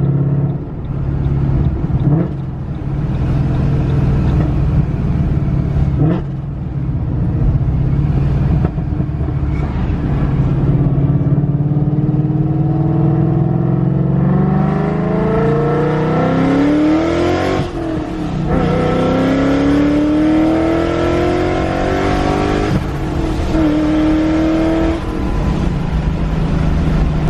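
Supercharged Coyote 5.0 V8 heard from inside the car while driving. It runs steadily at first, then pulls hard twice with the pitch climbing, and each pull breaks off suddenly with a short burst of noise as the throttle is lifted and the Tial Q50 blow-off valve vents.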